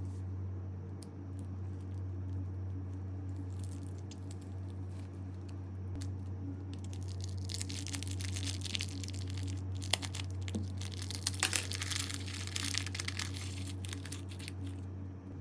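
Slime being squeezed and stretched by hand, making crackling, popping sounds that start sparse and become dense and busy in the second half, over a steady low hum.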